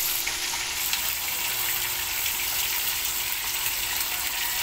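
Whole tilapia frying in hot oil in a pan: a steady sizzle with fine crackles.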